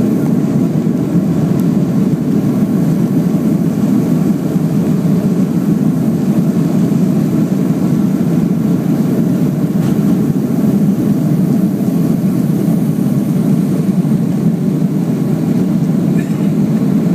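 Cabin noise of a Boeing 757-200 at takeoff power, heard from a window seat over the wing as the jet finishes its takeoff roll and lifts off: a steady, loud, deep noise of jet engines and airflow.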